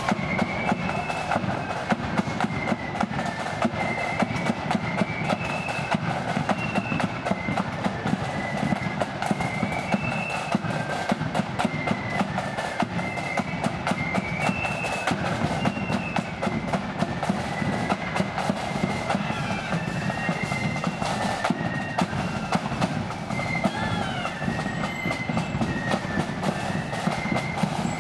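Blood-and-thunder marching flute band playing a march: flutes carry a high melody over rapid snare drumming and a steady bass drum beat.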